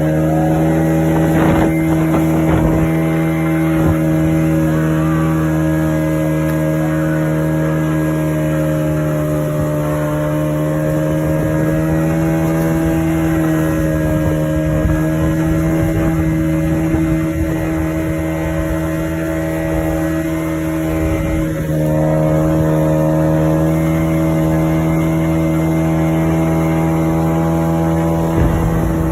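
Motorboat engine running at a steady speed, a constant drone that holds one pitch with only a slight shift about two-thirds of the way through.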